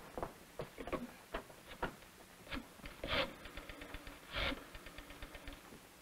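Faint footsteps and clicks of handling at the desk, then a rotary telephone being dialled: two runs of quick, evenly spaced clicks, about ten a second, as the dial spins back.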